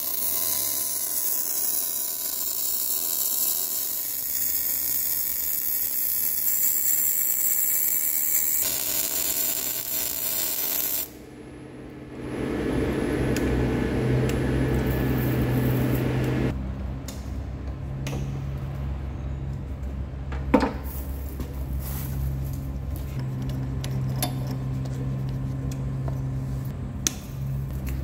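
Portable line boring and bore welding machine at work in a steel pivot bore. For the first ten seconds or so a motor whines over a high hiss. After a break there is a steady low hum with scattered clicks and crackles.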